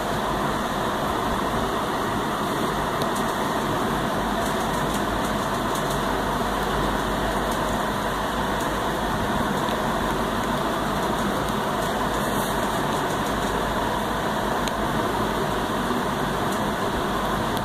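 Steady, even background hum and hiss that does not change, with no speech.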